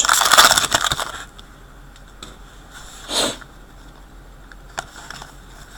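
Trading-card pack wrappers crinkling and rustling as packs are torn open and handled, fading out after about a second. Then a short sniff about three seconds in.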